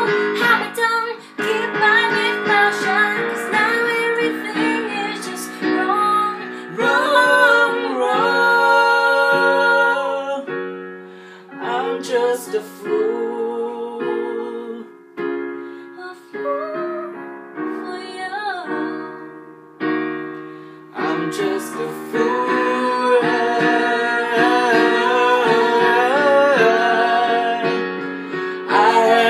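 A woman and a man singing a ballad duet over an electric keyboard played in a piano sound. The song thins out and quietens through the middle, with sparser singing and the keyboard's notes dying away between phrases, then both voices come back fuller and louder about three-quarters of the way through.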